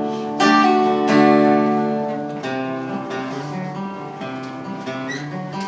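Acoustic guitar strummed in a slow song accompaniment. Several chords are struck and left to ring, fading softer through the middle and end.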